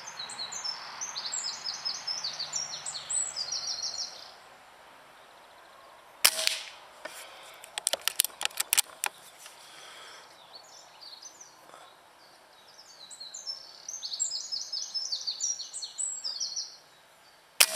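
Brocock Compatto pre-charged pneumatic air rifle firing a single pellet shot, a short sharp crack about six seconds in, followed by a quick run of clicks as the action is worked. A second shot comes near the end. Small birds chirp on and off in the background.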